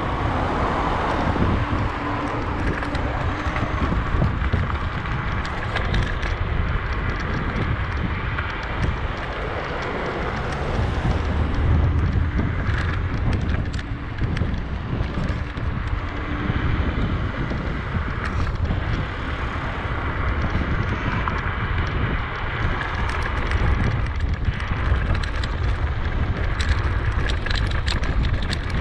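Wind buffeting the microphone on a moving bicycle, a steady low rumble with scattered faint ticks and rattles.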